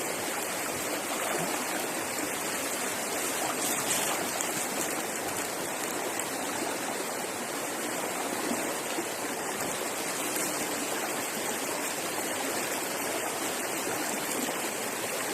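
Fast, swollen stream rushing steadily over rapids, the water noise constant throughout.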